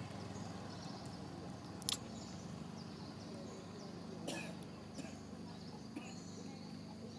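Outdoor background: a steady low hum with faint, high, thin calls. A few sharp clicks stand out, the loudest about two seconds in and a softer one with a brief tail a little past four seconds.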